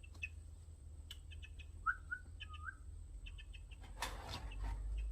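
Birds calling: short high chirps throughout, with three short lower calls about two seconds in. A burst of rustling comes about four seconds in.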